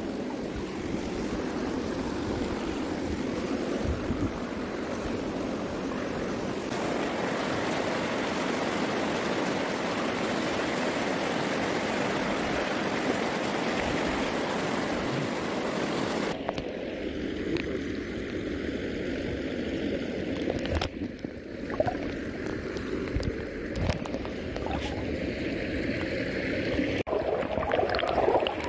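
Clear, rocky mountain stream rushing and splashing over stones, steady. About halfway through the sound turns muffled and uneven, with gurgling, as the phone goes under the water.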